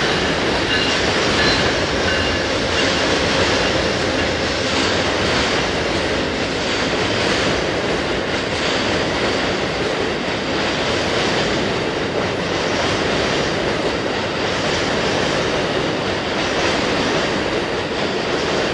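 Amtrak passenger train crossing a low trestle bridge, its coaches rolling past with a steady noise of steel wheels on the rails and a faint, regular clacking.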